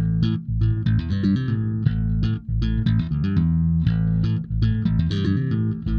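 Outro music: bass and electric guitar playing a busy plucked riff over a steady beat.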